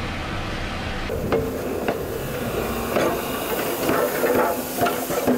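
Inside a steam locomotive's cab: a steady low rumble, then steam hissing from about a second in, with irregular metallic clanks and knocks.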